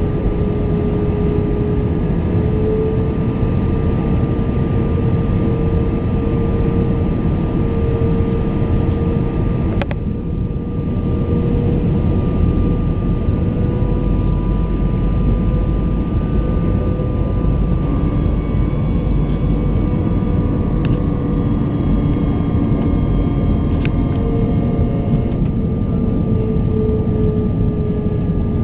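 Airbus A320 jet engines and airflow heard from inside the cabin on the landing approach: a steady rush of noise with an engine whine whose pitch rises slightly and later eases back as thrust is adjusted. A brief click about ten seconds in.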